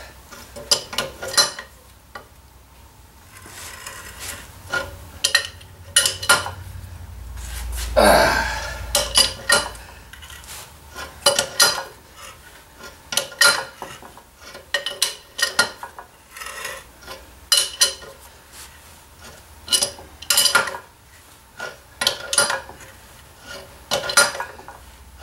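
Crescent wrench with a length of pipe on it, working a rust-seized nut and bolt back and forth on an old cast-iron blacksmith's leg vise: irregular metal clinks, ticks and scrapes as the rusty threads give, with penetrating oil being worked in. About eight seconds in there is a louder low rumble with a falling sweep.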